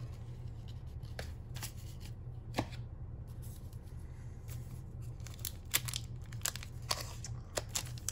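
Pokémon trading cards being handled and laid down on a wooden table: scattered light taps and slides, more frequent in the last few seconds as a foil booster pack is picked up. A steady low hum runs underneath.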